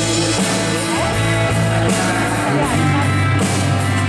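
Live pop-rock band playing an instrumental passage: strummed acoustic guitars and electric guitar over low bass notes that change about once a second, with a steady beat.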